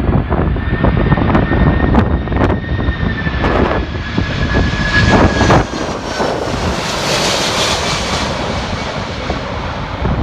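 An airliner on landing approach passing overhead, its engine whine dropping slightly in pitch as it goes by and a rushing hiss peaking about seven seconds in. Strong gusty wind buffets the microphone throughout with low rumbling and sharp knocks.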